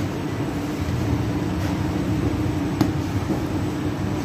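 Steady low mechanical hum of bakery machinery running, with a couple of short sharp knocks.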